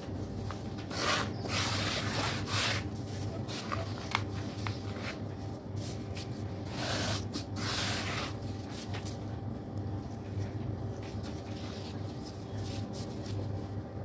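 Gloved hands rubbing and crumbling dry red sand in a plastic tub: gritty swishing rubs, loudest in the first few seconds and again about seven seconds in, with a few small crackles between, then fainter light scraping. A faint steady low hum sits underneath.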